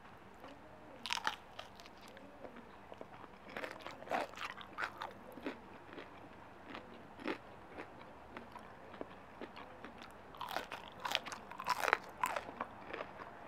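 A person biting into and chewing crunchy batter-fried oyster mushrooms, the crisp coating cracking in quick bursts of crunches: about a second in, again around four to five seconds in, and the loudest run from about ten to twelve seconds.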